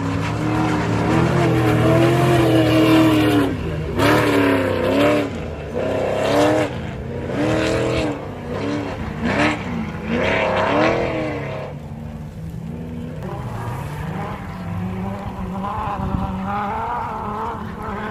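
Off-road race car's engine revving hard in repeated surges, rising and falling about once a second, as it fights for traction in mud with its wheels spinning. For the last several seconds it settles to a lower, steadier note.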